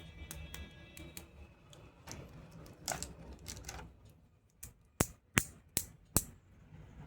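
Plastic toy pieces being handled and snapped, making sharp clicks and taps: a scattered few at first, then four loud clicks in quick succession near the end.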